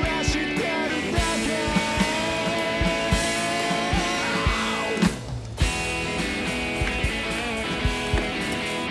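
Rock song with guitar, drums on a steady beat and a male voice singing held notes; the band drops out for about half a second around five seconds in, then comes back.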